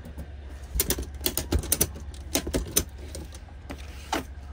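Ratchet strap buckle being cranked to tighten the webbing over boxed freight: a quick run of sharp metal ratchet clicks about a second in, then a few single clicks near the end, as the strap is drawn tight.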